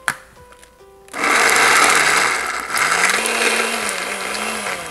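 Countertop blender switched on about a second in, running on a thick mash of roasted pumpkin, its motor pitch rising and wavering as it struggles with the dense load, then stopping near the end.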